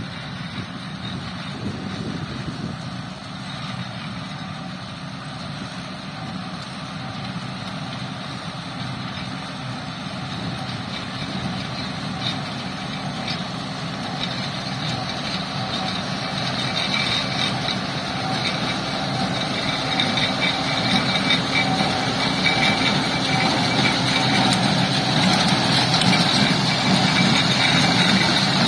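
Tractor running steadily while pulling a small square baler through windrows of cut alfalfa, growing louder as it comes closer; in the second half the baler's mechanism adds a faint, evenly repeating clatter.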